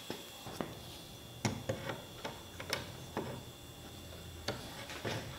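Scattered light clicks and taps, about eight over a few seconds, of tools and wood being handled and set down on a workbench.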